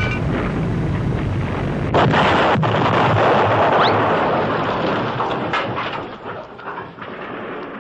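Cartoon explosion sound effect: a house bursting from built-up steam. A rumbling build-up, then about two seconds in a sudden loud blast whose noisy rumble fades away over several seconds.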